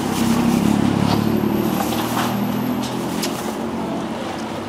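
A vehicle engine passing on the street: a steady low hum, loudest in the first two or three seconds, then fading. Plastic bag rustling and a few light clicks are heard over it.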